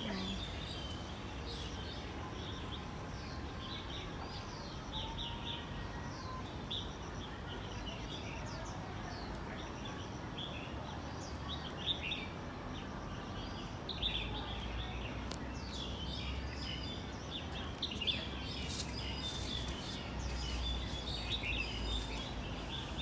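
Small birds chirping, many short high calls throughout, over a steady outdoor background hiss. A low rumble swells twice in the second half.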